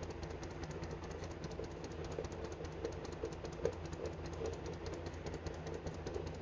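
Handheld fetal Doppler monitor's speaker giving a steady rumbling static with fast, faint clicking, as the probe is held on a pregnant belly at 22 weeks.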